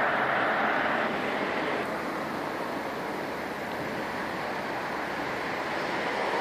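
Steady wash of distant city traffic noise, with no single vehicle standing out; it drops a little about a second in and swells slightly near the end.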